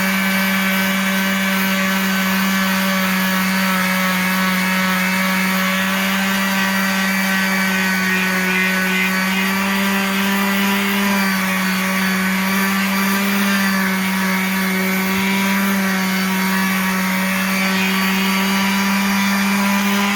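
Electric sander running steadily while sanding a car's wheel rim smooth, its motor pitch shifting slightly now and then as it is pressed against the wheel.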